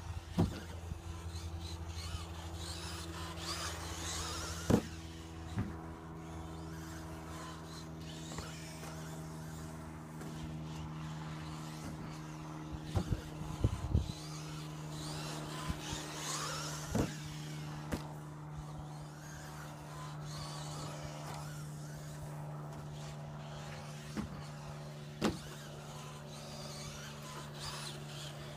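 Team Associated B5M electric 1/10 2WD RC buggy running laps on a plastic tile track: its motor whine rises and falls each time it passes, roughly every twelve seconds. Sharp clacks from the buggy landing jumps and hitting the surface are the loudest sounds.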